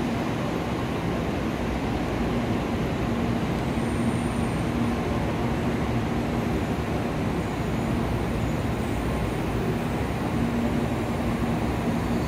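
Steady rush and hum of a stationary N700-series Shinkansen's onboard equipment at the platform, with a low tone that swells and fades now and then.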